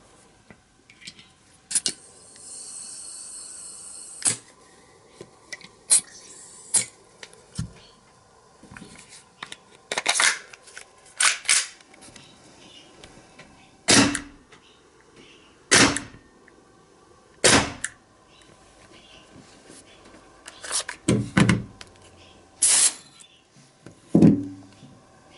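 Gas-powered airsoft gun firing single shots, a dozen or so sharp reports at irregular intervals of one to three seconds. A high hiss of escaping gas lasts about two seconds near the start.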